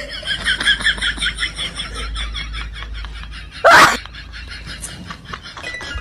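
A person's loud, sharp sneeze about two-thirds of the way in, following a quick run of high, evenly repeated chirping pulses.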